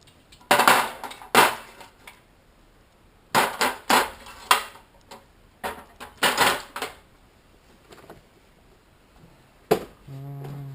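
Metal hand tools clattering and clanking as they are picked up and set down, in several short clusters of sharp knocks.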